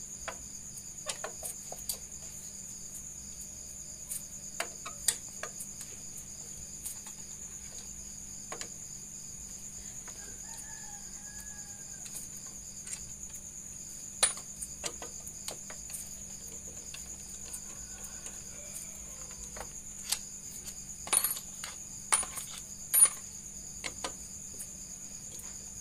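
Scattered sharp metal clicks and clinks, heaviest near the end, of an 8 mm T-handle wrench loosening the clutch-cover bolts of a Yamaha Byson engine. Behind them a steady high insect trill and, twice, a faint rooster crowing.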